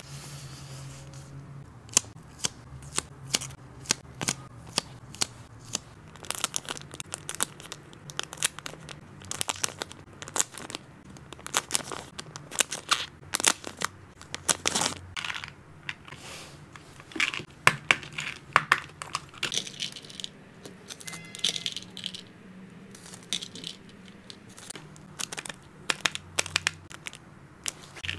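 Clear plastic snack pouches crinkling as they are handled and pulled open, close to the microphone, with many short, sharp clicks from small plastic snap-lock containers and their lids.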